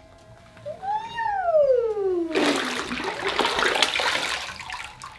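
Water rushing and sloshing in a bathtub thick with jelly slime for about two and a half seconds, starting suddenly. Just before it, a pitched tone rises briefly and then slides down.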